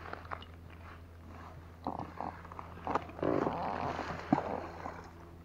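Handling noises as a fishing rod is taken up by its reel seat: short scraping and rasping sounds with a few sharp clicks, busiest about three seconds in.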